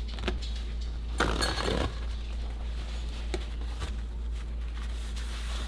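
Kitchen clatter: a few light clinks of dishes and utensils, with a short rustling noise lasting under a second about a second in, over a steady low hum.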